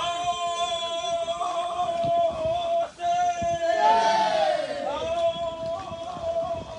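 A voice singing or chanting long held notes: one note held steady for about three seconds, then a downward slide, then another held note.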